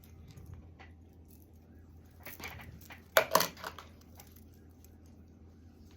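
Small metal strap-end fittings being picked up and handled, giving a few short clinks and rattles, the loudest a little after three seconds in.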